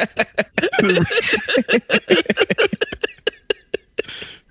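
Men laughing hard in rapid short bursts, with a breathy exhale near the end.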